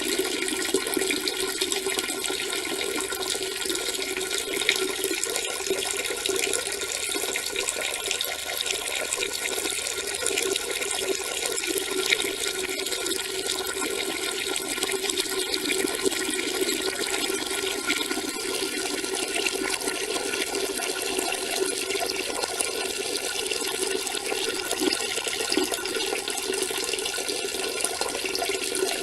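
A steady stream of urine splashing into water, unbroken throughout.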